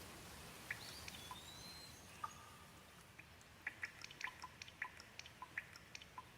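Gentle light rain: a faint steady hiss with scattered individual drops ticking, the drops coming more often in the second half.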